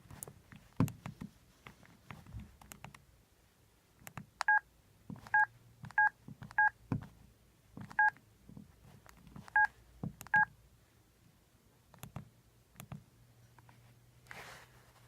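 Mobile phone keypad tones: seven short, identical beeps at irregular intervals, like keys being pressed one by one. Soft clicks and taps of handling come in between.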